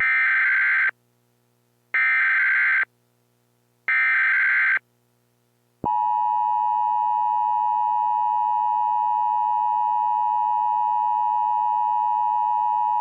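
Emergency Alert System tones: three short warbling SAME header data bursts, each just under a second long and about two seconds apart. About six seconds in, the steady two-tone EAS attention signal starts and holds.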